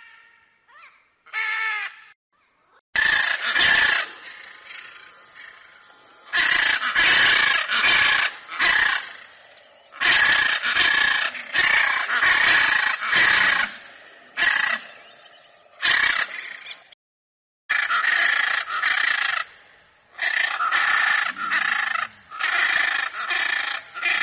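Macaws screeching: loud, harsh, raspy squawks repeated in bursts, with brief pauses between runs of calls.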